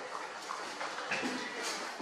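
Puppy lapping from a clear plastic tub, with small wet clicks and knocks.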